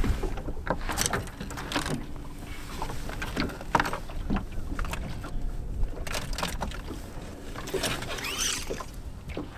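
Knocks and clatter of gear being handled on a bass boat deck as a carpeted storage-compartment lid is lifted open, over a steady rumble of wind and water. A brief squeak near the end.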